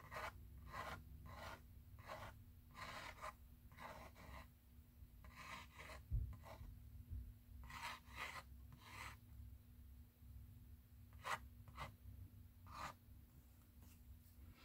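Ink pen nib scratching across watercolour-painted journal paper in a dozen or so short, quick strokes, drawing sketchy lines. One soft low thump about six seconds in.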